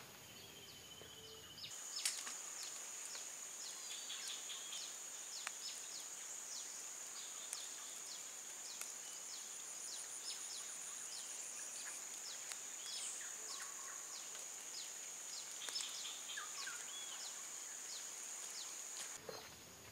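A steady high-pitched insect drone with many short, falling bird chirps over it. It starts about two seconds in and stops shortly before the end.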